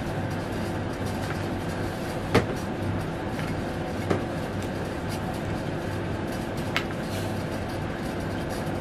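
A steady low hum, with a towel rubbing through a long-haired cat's coat and three sharp clicks, about two, four and seven seconds in.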